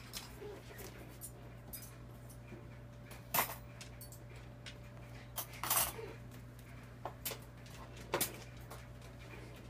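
Wire dishwasher racks clinking and rattling in a few short bursts as a kitten climbs about inside the open dishwasher, over a faint steady hum.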